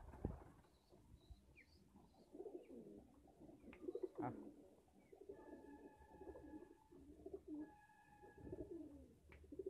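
Domestic pigeons cooing, low coos repeated in several rounds, with a sharp knock at the start and another about four seconds in.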